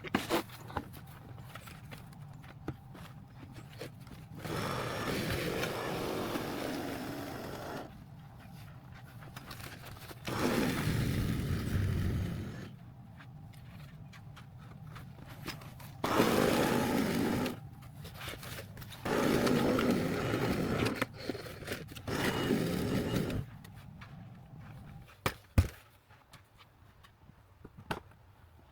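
Snow shovel scraping across pavement in five long pushes with pauses between them, and a few sharp knocks near the end.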